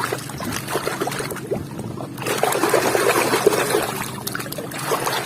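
Water splashing and trickling as a muddy toy is swished and rinsed by hand in a container of water, with a short lull about two seconds in.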